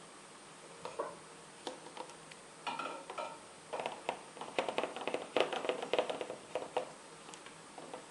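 A run of light clicks, taps and small splashes, sparse at first and busiest in the middle, as a small container is handled at the aquarium's surface and live mosquito larvae are tipped into the water.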